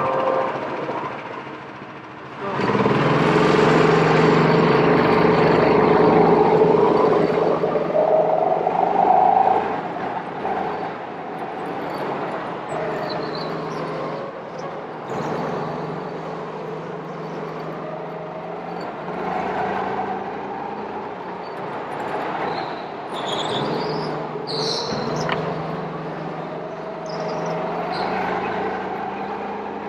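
Go-kart engine running, its pitch rising and falling as the kart speeds up and slows down. It gets much louder suddenly about two and a half seconds in.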